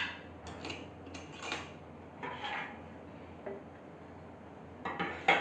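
A metal spoon clinking and scraping against a cooking pot now and then, a few light knocks spread out, with the loudest two close together near the end.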